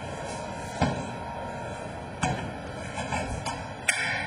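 Three sharp knocks, the last and loudest near the end, over a steady background hum.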